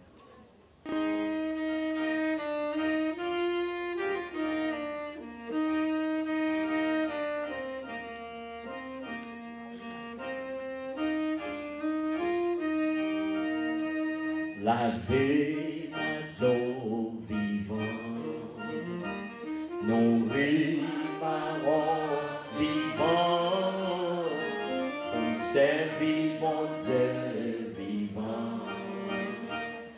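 A hymn melody played on a sustained-tone instrument, with long held notes. About halfway through, a man starts singing along with it.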